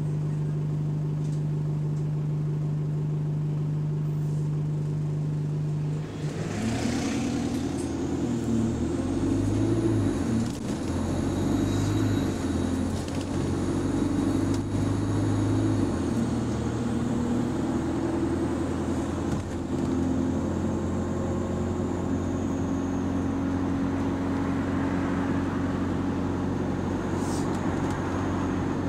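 Bus engine heard from inside the passenger saloon. It idles steadily, then about six seconds in the bus pulls away and accelerates, its note stepping with each gear change for about ten seconds before it settles into steady running. There is no exhaust ticking: the exhaust has been repaired.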